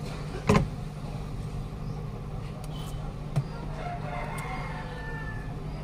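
Steady low hum of a repair bench with a sharp knock about half a second in and a couple of light clicks later, from a phone circuit board and tools being handled. A faint wavering call sounds in the background near the middle.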